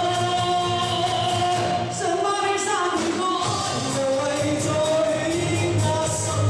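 A woman singing live over a pop backing track with a steady beat, in a large hall.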